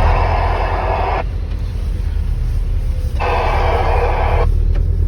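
Truck engine running in the cab with a steady low rumble, while a CB radio hisses with static that cuts out about a second in and comes back for about a second near the middle.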